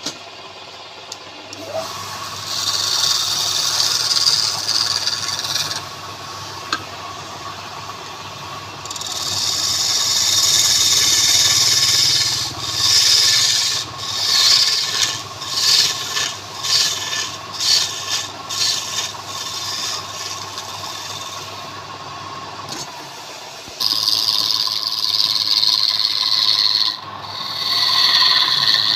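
Wood lathe running with a steady hum while a turning tool rasps against the spinning wood. The rasping comes in stretches of a few seconds, and in the middle it breaks into short strokes about once a second.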